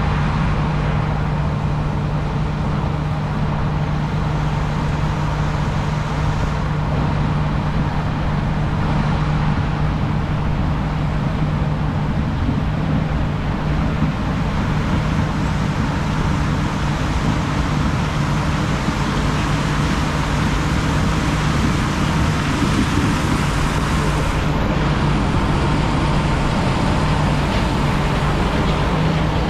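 A vehicle engine running steadily with a constant low hum and noise, with no changes in pace or pitch.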